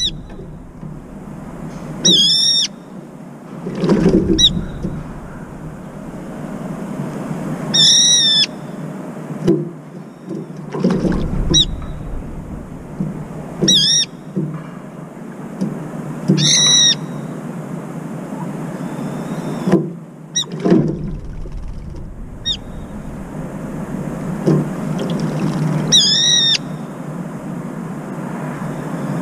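Brown-eared bulbul giving loud, shrill, squealing calls: five in all, each about half a second long with a wavering pitch, several seconds apart, over steady low background noise.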